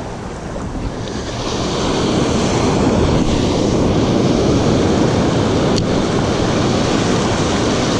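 Surf washing up the beach in a steady rush, swelling about a second and a half in, with wind buffeting the microphone. A single sharp click sounds once a little before six seconds.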